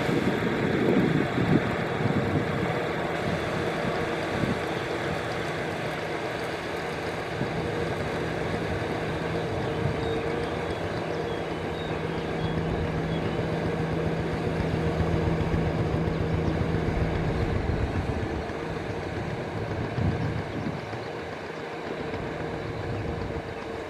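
Diesel tractor engine running steadily under load, dragging a levelling board through flooded paddy mud. Its steady hum changes about three-quarters of the way through and turns a little quieter.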